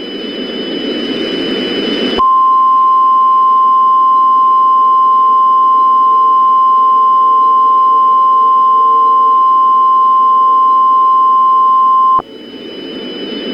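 Radio static hiss with a faint steady high whine, growing louder. About two seconds in it gives way to a single loud, steady 1050 Hz NOAA Weather Radio warning alarm tone, which holds for about ten seconds and cuts off abruptly. Then the static swells again. The tone signals that a warning message follows.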